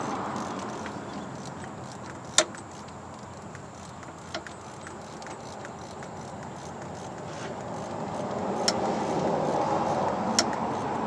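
A few sharp clicks of hand tools and metal parts, the loudest about two seconds in and two more near the end, over a steady rushing background noise that fades and then swells again.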